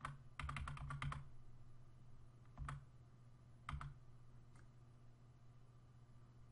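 Computer keyboard keys tapped: a quick run of about seven presses, then a single press and a pair, as an arrow key is pressed repeatedly to nudge a part. A steady low hum runs underneath.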